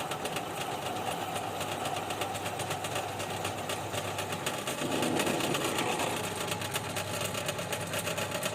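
Power drill boring into a steel tow ball, running steadily with a fast, even chatter.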